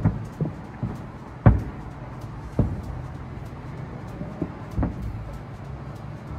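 Aerial fireworks shells bursting: a series of dull booms at irregular intervals, the loudest about a second and a half in.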